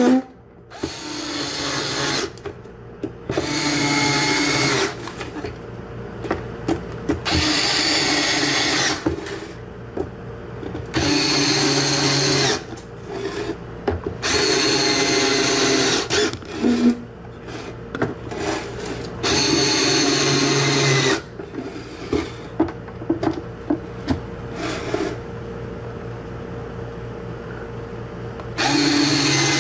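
Ryobi cordless drill-driver running the screws into the plastic back housing of a truck instrument cluster, in about seven short bursts of one to two seconds each. Light clicks and handling of the plastic case come between the bursts.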